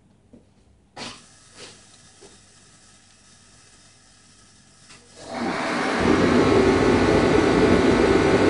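A portable forced-air torpedo heater starting up: a click about a second in, then about five seconds in a loud rush of its fan and burner rises quickly and runs steadily.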